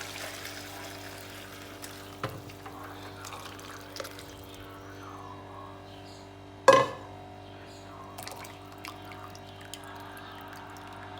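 Water running at a kitchen sink, fading away over the first second or two, then a few light clinks and one sharp, ringing clank about seven seconds in, over a steady hum.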